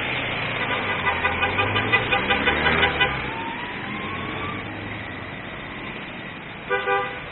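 City street traffic noise. A horn sounds a quick run of short toots in the first few seconds, and a short double honk comes near the end.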